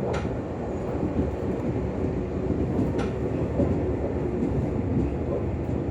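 Meitetsu 6000 series electric train running, heard inside the passenger car: a steady low rumble with two sharp clicks about three seconds apart.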